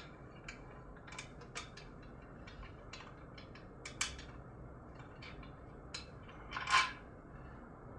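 Tuning bolt being unscrewed from a doumbek: a scattering of small, irregular clicks, with a short, louder scrape near the end.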